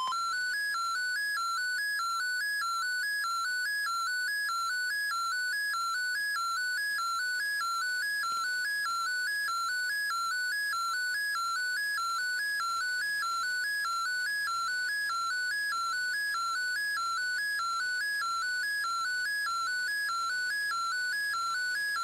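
Shortwave radio picture transmission received on an Icom IC-R8600: one electronic tone flipping back and forth between two pitches in an even, rapid pattern. It is the sound of an image being sent over the air for the decoding software to draw.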